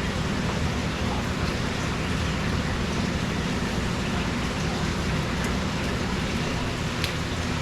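Pump draining an indoor fish pond for a water change: a steady rush of running water over a low hum, with a faint click about seven seconds in.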